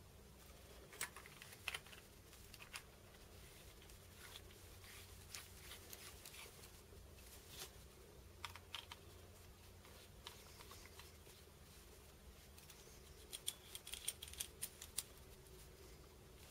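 Faint light clicks and taps of small metal parts as a tube battery mod is handled and screwed together by hand, with a quicker run of clicks near the end.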